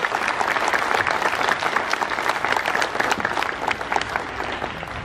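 Crowd applauding: dense clapping that thins out and fades near the end.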